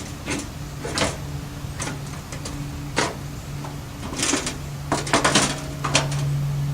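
Scattered clicks and clacks from the sheet-metal case and lid hinge of a Coleman camp stove being worked by hand, with a quick cluster of clicks about five seconds in, over a steady low hum.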